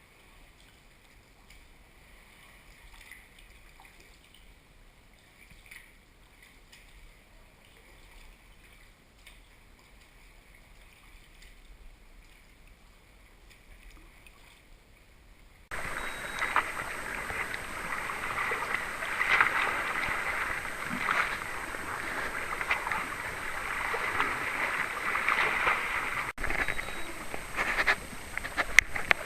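Water splashing and lapping around a sea kayak on the water, faint at first, then much louder and busier after an abrupt jump about 16 seconds in.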